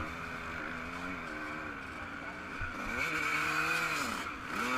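Yamaha YZ125 two-stroke motocross engine revving under riding, its pitch rising and falling several times as the throttle opens and closes, over a steady rushing noise.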